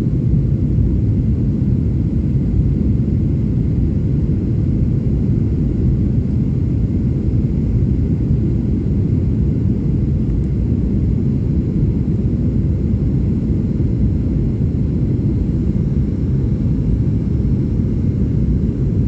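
Airliner engines and airflow making a steady low rumble, with no change in level, during an aborted landing in strong wind.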